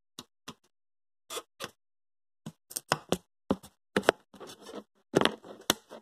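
A string of irregular knocks, clicks and short rubbing scrapes: the camera being handled up close. They are sparse at first and come thick and fast from about halfway through.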